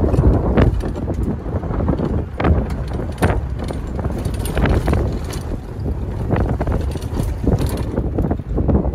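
Wind buffeting the microphone over the low rumble of a safari 4x4 driving on a rough dirt track, with irregular knocks and rattles as it bumps along, heard from its open roof hatch.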